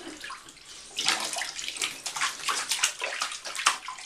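A baby slapping the bathwater with her hands in a plastic infant bath seat: a quick run of splashes that starts about a second in.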